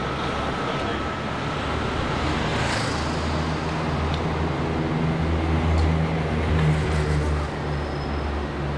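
City street traffic: car engines running close by as cars idle and creep along in a queue, a low hum that swells past the middle and eases near the end. A thin high whine stops about two seconds in.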